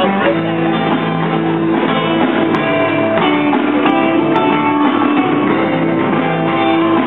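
A small live rock band playing: electric guitar playing held notes and chords over a drum kit.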